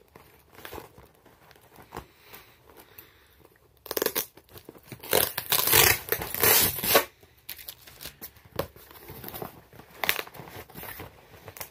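Cardboard shipping box being torn open by hand: scattered light taps and rustles, then a loud stretch of ripping from about four seconds in that lasts about three seconds, then more crinkling and rustling.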